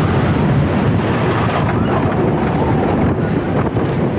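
Wooden roller coaster train running along its track, heard from on board, with heavy wind noise on the microphone.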